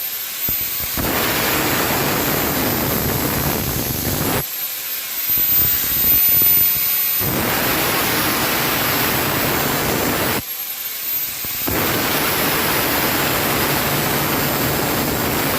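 Angle grinder working a welded steel part, a loud steady grinding rush with a high motor whine. About four seconds in and again about ten seconds in, the low grinding noise drops away for a moment while the whine rises in pitch.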